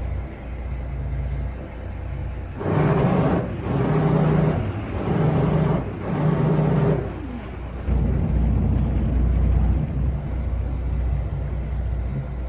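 Boat engine rumbling steadily, with four louder surges of pitched engine noise in the middle and a falling pitch as it eases back, followed by a heavier low rumble.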